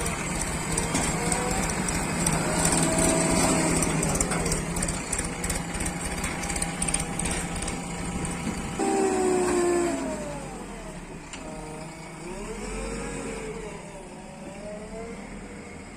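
Backhoe loader's diesel engine running under load, with an abrupt change about nine seconds in, after which it revs up and down repeatedly.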